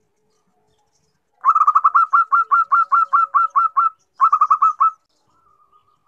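Female zebra dove (perkutut) calling: a fast run of short, clipped coos, about five a second for some two and a half seconds, then after a brief pause a shorter, quicker run, with a faint soft coo near the end. This is the female's call to a male, used to lure and set off male zebra doves.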